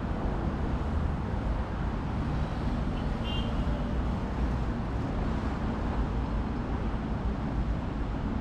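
Steady city road traffic: a continuous low rumble of passing cars and buses. A brief high-pitched sound cuts through about three seconds in.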